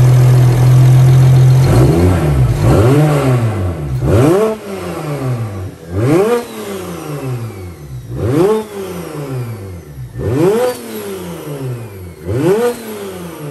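Single-turbo BMW N54 straight-six with an open wastegate dump, idling and then revved in a string of quick throttle blips about every two seconds, each rising and dropping back to idle.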